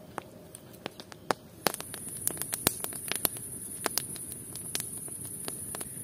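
Wood campfire burning with colored-fire powder, crackling with sharp, irregular pops. A steady high hiss comes in about a second and a half in, and the pops grow louder and more frequent.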